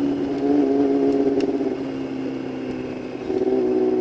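Yamaha YZF-R6's inline-four engine through an aftermarket Shadux exhaust, running at steady high revs. The note eases off slightly and then opens up again, louder, about three seconds in.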